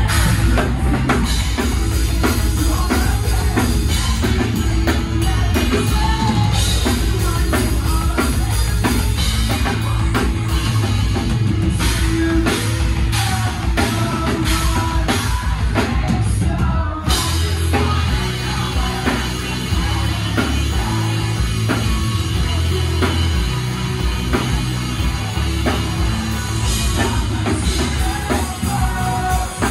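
Rock band playing live: electric guitars and a pounding drum kit, with a singer's vocals.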